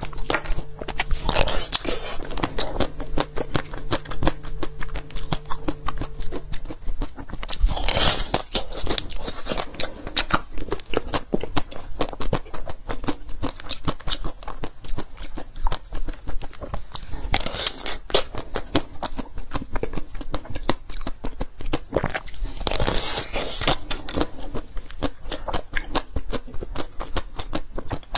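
Close-miked crunching and chewing of a frozen ice treat with a red shell. Four louder biting crunches come several seconds apart, with crackly chewing of the ice in between.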